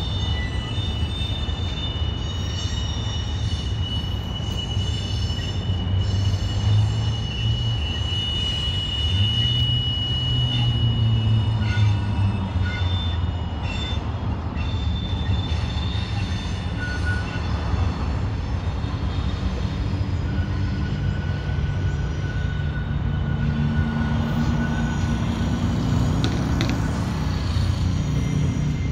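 Freight train cars of an intermodal train with auto racks rolling past, a steady rumble of wheels on the rails. Thin, high wheel squeal rings through the first ten seconds or so.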